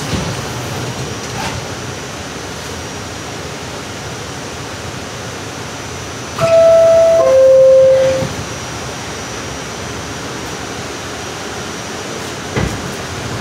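R44 subway car's door-closing chime: two descending tones, high then low, about halfway through, warning that the doors are about to close. It rings over the steady hum of the stopped train, with a short thump near the end.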